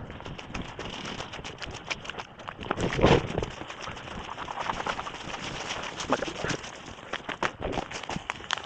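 Heavy, close breathing with a run of sharp clicks and knocks throughout. The loudest moment is a heavy burst about three seconds in.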